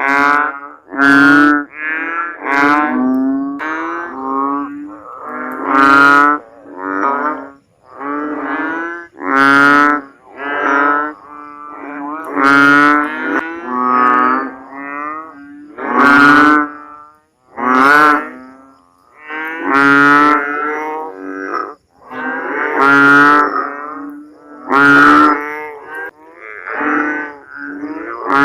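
Banded bullfrogs (Asian painted frogs) calling: a run of short, pitched calls, each under a second. Several overlap, with louder calls coming every two to three seconds and softer ones in between.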